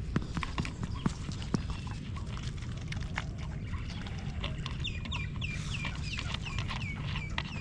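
A bird calling in a quick run of about ten short, high chirps, each falling in pitch, starting about five seconds in, over scattered small clicks and knocks.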